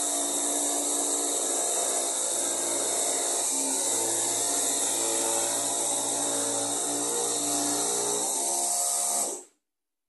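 Electric jigsaw running and cutting through a thin wooden panel, a steady high buzzing whine that stops suddenly near the end.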